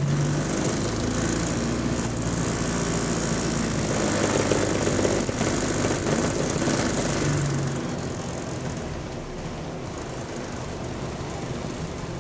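Bus engine running under load, heard from inside the bus, with a high hiss over it. It is louder for the first eight seconds or so, then eases off to a lower, steady running sound.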